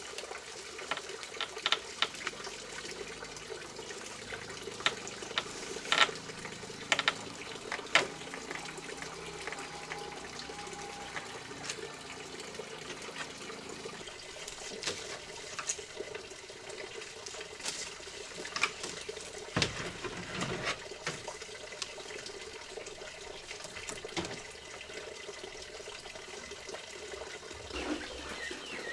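Water running steadily, with scattered light knocks and clatter throughout.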